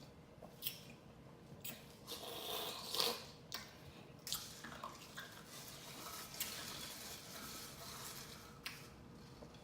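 Crushed ice soaked in soda crunching and crackling, with scattered sharp clicks and wet squishing sounds.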